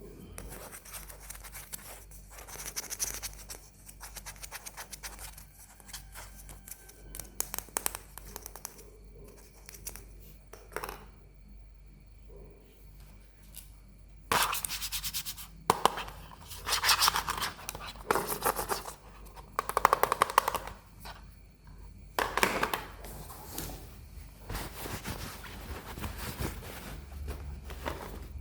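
A plastic toy and its packaging being handled: bursts of rapid clicking, rattling and crinkling, loudest in the second half.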